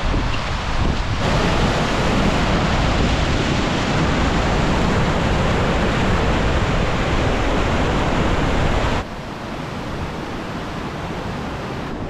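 Fast mountain beck in winter spate, whitewater rushing and tumbling over rocks as a steady, loud rush. It gets louder and fuller about a second in and drops quieter about nine seconds in.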